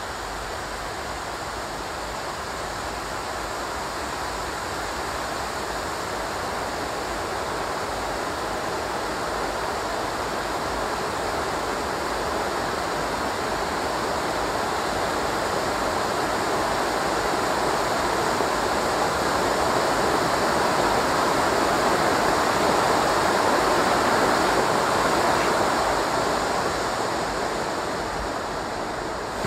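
A row of firework ground fountains spraying sparks with a steady rushing hiss that slowly grows louder, then eases off near the end.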